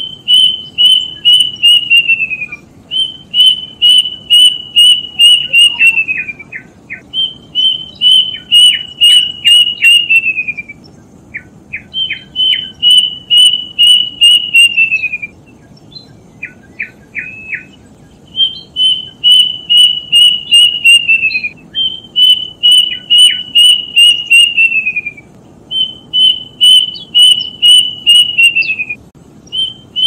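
Plaintive cuckoo (kedasih) singing: repeated phrases of about half a dozen clear whistled notes on one pitch, each phrase dropping away at its end, with a new phrase every few seconds. Short, quick down-slurred notes come between some phrases, and there is a longer pause about halfway through.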